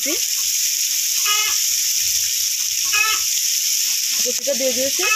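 Sliced onions frying in hot oil in a kadai: a steady sizzle, with a metal spatula stirring and chopped green chillies dropped in near the end. A few short animal calls sound over it, at about one and three seconds in, and a longer, lower one just before the end.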